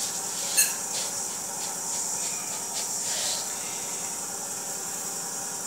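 A steel bowl clinks once against a steel pan, then granulated sugar is poured from it into the water in the pan, with a few light ticks and a soft rustle. A steady high hiss runs underneath.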